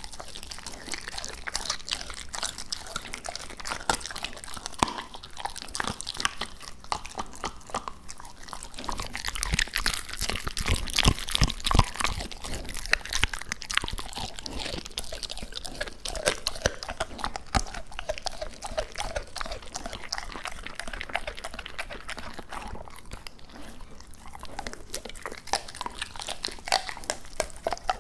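A Labrador retriever chewing raw duck on the bone, a steady run of crunches and bites close to the microphone, loudest around the middle.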